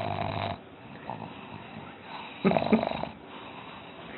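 A black pug making short snoring sounds through its nose, in two spells: a brief one at the start and a louder, pulsing one about two and a half seconds in.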